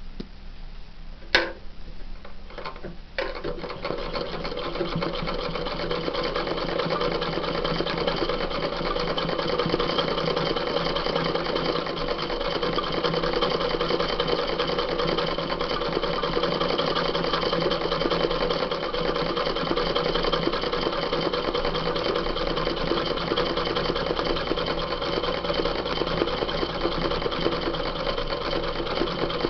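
Sewing machine stitching free-motion embroidery through hooped denim. A sharp click and a few light knocks come first, then about three seconds in the machine starts and runs steadily at speed.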